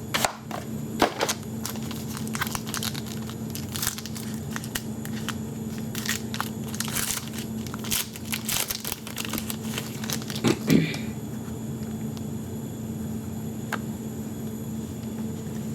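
A pack of hockey trading cards being torn open by hand: the wrapper crinkles and tears in a run of sharp crackles for about ten seconds, after which only a steady low hum remains.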